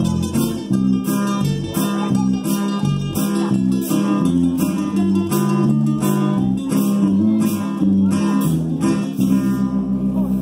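Acoustic guitar strummed in a steady rhythm, about two strokes a second, playing an instrumental passage of a hymn.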